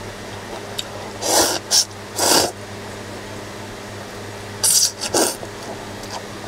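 A person slurping cold thin wheat noodles (somyeon), five short slurps: three close together about a second in, then two more near the end. A steady low hum underneath.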